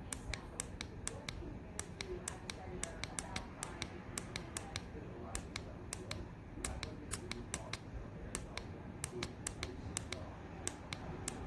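Rapid, irregular sharp clicks, a few each second, over a faint background murmur.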